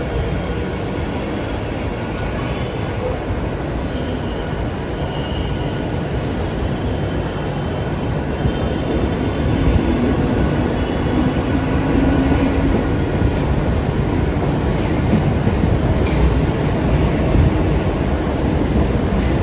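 Steady rumble of a Mumbai suburban local train in a covered station, growing a little louder about halfway through.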